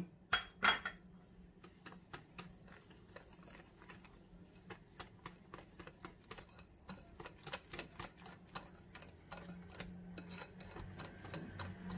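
Wire balloon whisk beating flour into a runny cake batter in a glass bowl: a quick, irregular run of light clicks as the wires strike the glass, with soft wet stirring.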